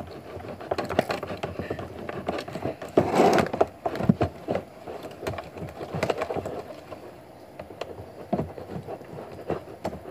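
Homemade slime being squished and kneaded by hand: a run of sticky clicks and crackling pops, with a louder squelch about three seconds in.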